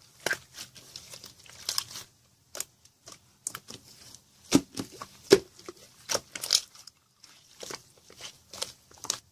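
Clear slime being squished and pressed by hand, making irregular sharp pops and clicks, several a second at times, with a few louder pops around the middle.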